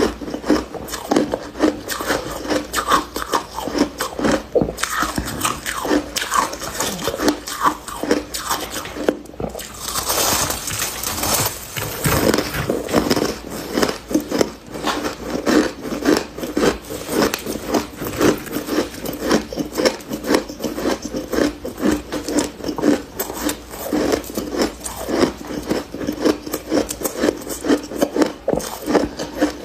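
Soft freezer frost being bitten and chewed close to the microphone: a fast, continuous run of crunches, with a hissier, grainier stretch about ten seconds in.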